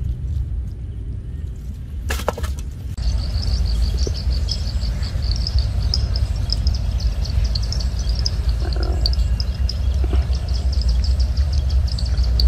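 Steady low rumble, with a fast run of high chirps starting about three seconds in, just after a short crackle.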